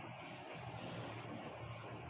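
Steady low background hum with an even hiss over it.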